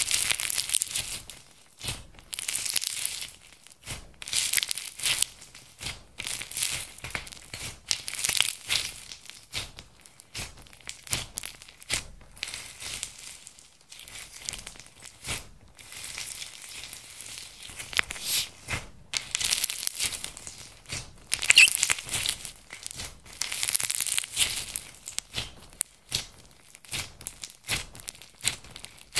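Clear slime mixed with glitter and small beads being kneaded and pressed by hand: sticky crackling in repeated bursts, about one every two seconds.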